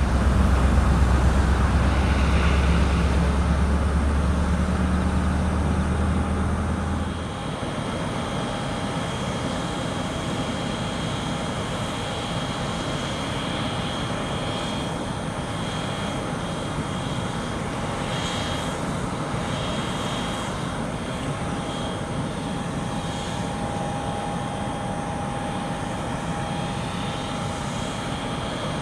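Jet airliner engines running, most likely the Boeing 737-800's: an even rush with a thin steady whine. A strong deep drone underneath stops abruptly about seven seconds in.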